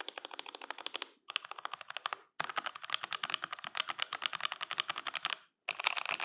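Fast typing on a CM64 mechanical keyboard with thick PBT keycaps and Gateron Yellow linear switches lubed with Krytox 205g0 and fitted with switch films. The keystrokes come about ten a second in runs, with brief pauses.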